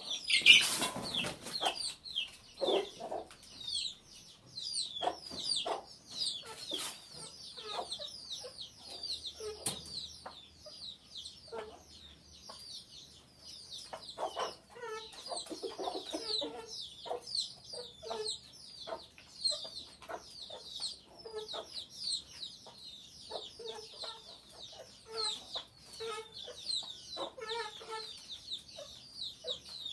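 Chickens clucking in short low notes, over constant high peeping from chicks. A brief loud rustle comes about a second in.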